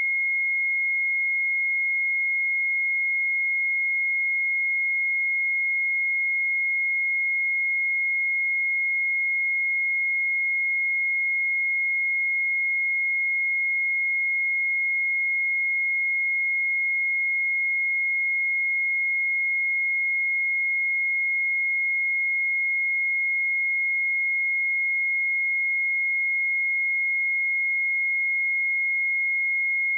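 A pure 2154 Hz sine-wave test tone, one steady high-pitched note held at a constant level, used to check speakers or headphones.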